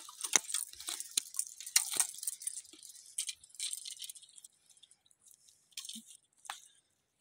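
Crunching steps over wet, gritty sand with rattling handling clicks from a freshly landed rohu and the fishing tackle. A quick run of clicks thins out after about three seconds.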